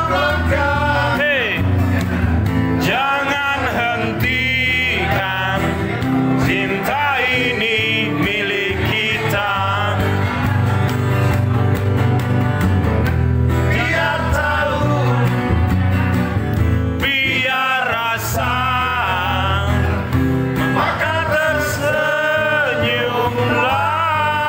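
A man singing a melody into a microphone, accompanied by a strummed acoustic guitar.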